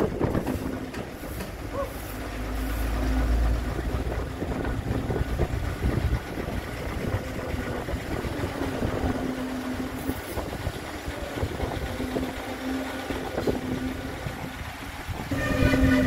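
Diesel engines of a truck-mounted concrete boom pump and transit mixer trucks running during concrete pumping, with a deep rumble swelling about two seconds in and a hum that comes and goes.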